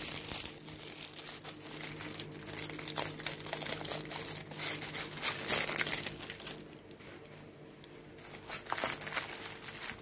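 Plastic bags and wrapping crinkling irregularly as they are handled, with a quieter lull for a couple of seconds past the middle.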